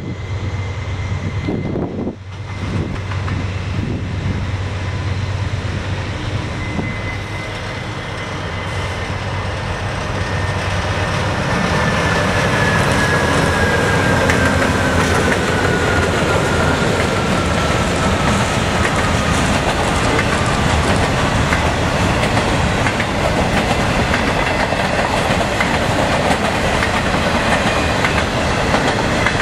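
CSX intermodal freight train passing: the diesel locomotive draws near and goes by with a high whine that falls in pitch, then the cars keep rolling past with a steady rumble and wheel clatter.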